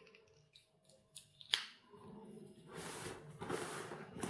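A single sharp click about a second and a half in as the Opinel folding knife's blade is snapped shut, then soft rustling of the nylon fishing bag as hands work at its side pocket.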